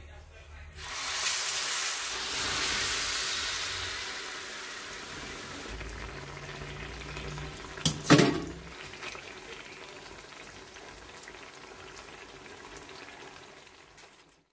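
Battered ripe banana slices (pazham pori) deep-frying in hot oil in a pan: a hissing sizzle that starts suddenly about a second in, is loudest for the next couple of seconds, then slowly dies down. A short sharp clatter about eight seconds in is the loudest moment.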